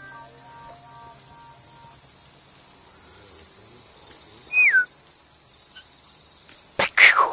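Steady high-pitched chorus of insects. Over it come one short whistle falling in pitch about two thirds of the way in, and a brief louder sound near the end.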